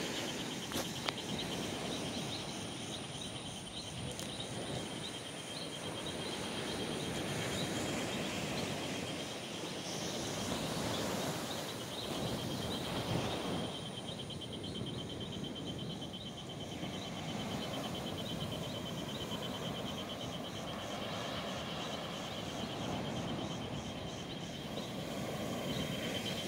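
Surf washing on the shore, a steady hiss that swells and eases every few seconds, with an insect trilling high and steady over it.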